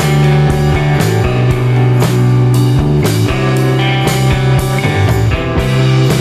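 Rock music with guitar and drums keeping a steady beat.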